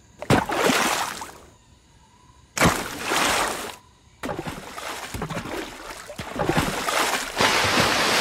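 Water splashing: two sudden splashes a couple of seconds apart, like bodies plunging into a lake, then continuous sloshing and splashing that swells again near the end.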